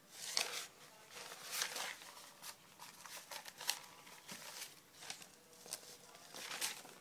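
Sheets of lined notebook paper rustling as they are handled and swapped, in a string of short, crisp swishes.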